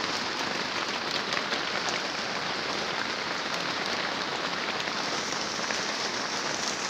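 Rain falling steadily: an even hiss with faint scattered ticks of drops.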